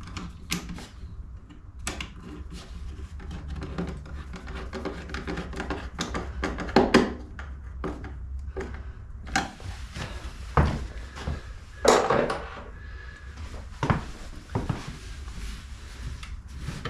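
Handling noise from fitting a diesel air heater's intake hose: scattered clicks, rubbing and knocks as a Jubilee clip is tightened round the hose, with a few louder thumps.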